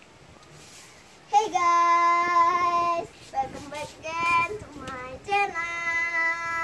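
A young girl singing, her voice coming in about a second in with a long held note, then a few shorter notes, then another long held note near the end.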